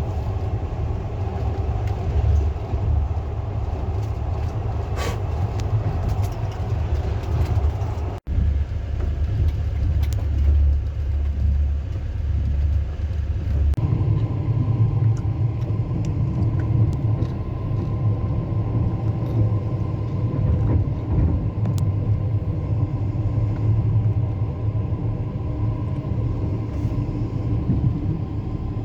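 Steady low rumble of a passenger train running along the track, heard from inside the carriage. It drops out for an instant about eight seconds in, and a few seconds later the rumble changes and a steady hum joins it.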